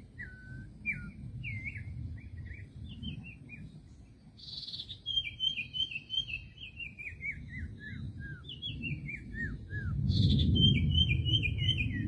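Common iora calling in bright whistled notes. There are a few short upslurred notes at first. From about five seconds in, a fast stuttering series steps down steadily in pitch, and it starts again near the end. A low rumble runs underneath and swells near the end.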